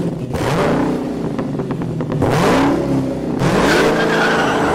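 A car engine running and being revved, its pitch sweeping up and back down several times.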